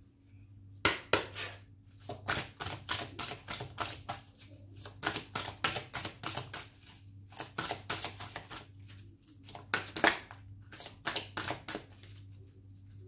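A deck of oracle cards being shuffled by hand: a quick, irregular run of papery slaps and flicks, several a second.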